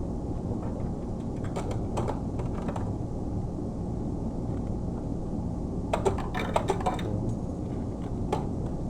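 Coins clicking and clinking against each other as they are handled, in a few bursts, the busiest about six to seven seconds in, over a steady low rumble.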